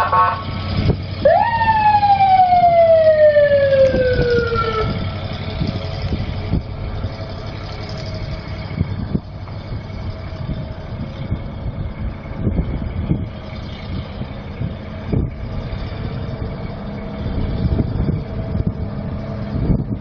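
A fire truck siren winds up quickly about a second in, then falls slowly in pitch over the next few seconds; a short horn-like tone sounds just before it. Afterwards the truck's 7.0L V8 gas engine runs steadily, with a few scattered knocks.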